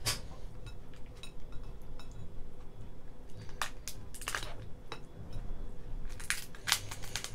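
Boiled lobster shell being cracked and pulled apart by hand: a series of short, sharp cracks and crunches, with the loudest ones near the end.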